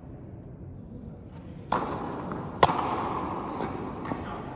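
Tennis racket striking a ball: one sharp, loud crack about two and a half seconds in that rings on in the echoing hall, after a duller impact about a second earlier. Fainter ticks of further shots follow.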